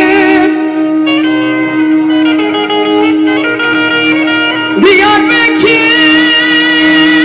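Kurdish uzun hava music: a steady drone note held under an ornamented melody line that wavers and bends, pausing briefly near the start.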